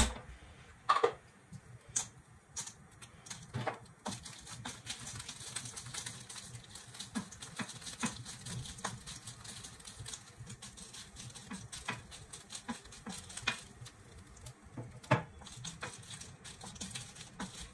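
Wooden spatula knocking and scraping on a metal kadai while dried red chillies are roasted in it, with a steady light crackling hiss from about four seconds in.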